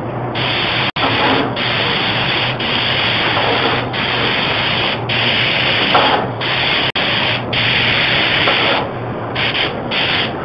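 Compressed-air spray gun spraying paint onto a door: a hiss that starts and stops about a dozen times as the trigger is pulled and released for each pass, over a steady low hum.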